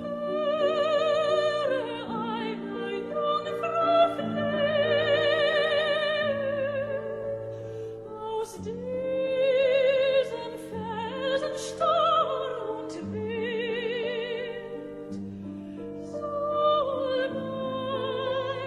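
Operatic singing with heavy vibrato over classical accompaniment: a music soundtrack.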